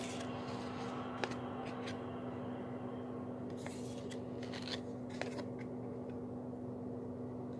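Trading cards handled by hand: a few light clicks and brief papery rustles of card against card as they are slid through a stack, over a steady low hum.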